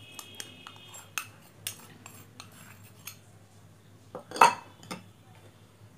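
Metal spoon and steel bowl clinking and scraping against a glass bowl as powdered spice is tipped in: a run of light clinks, then one louder clatter of dishes about four and a half seconds in.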